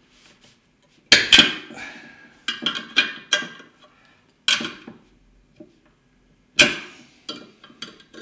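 Steel socket wrench and spanner clinking against the nuts of RCA sockets and the metal chassis panel as the sockets are tightened: a few sharp metallic clanks, spaced irregularly a second or two apart.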